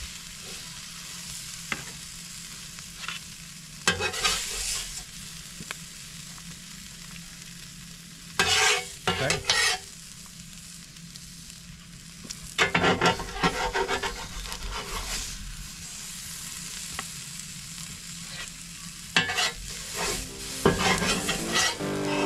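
Food sizzling steadily on a Blackstone flat-top griddle, with short bursts of scraping and stirring on the cooktop several times.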